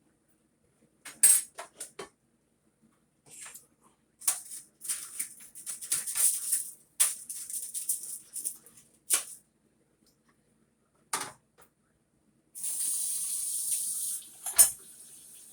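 Kitchen handling noises, a few clatters and stretches of crinkly rustling, then a tap runs for about two seconds near the end and stops, followed by a single knock.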